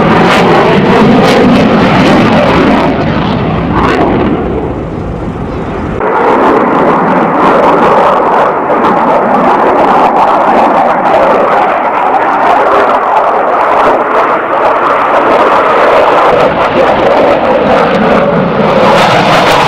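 Mikoyan MiG-29's twin Klimov RD-33 turbofans at full display power: loud jet noise with tones sliding in pitch as the jet moves past. It drops away briefly a few seconds in, then comes back suddenly loud and full about six seconds in.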